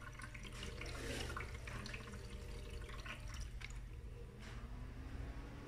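Mondial portable ice maker running faintly: a low steady hum with water trickling and dripping inside it. A faint tone comes in and rises slightly near the end.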